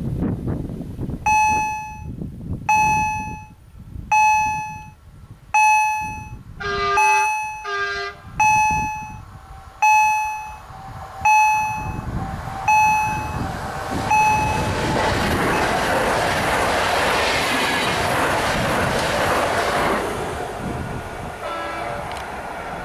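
Automatic level-crossing warning bell striking about once every one and a half seconds, with two short train horn blasts about seven seconds in. The bell stops and a PKP Intercity ED160 (Stadler FLIRT) electric multiple unit passes with a loud rushing rumble that fades away.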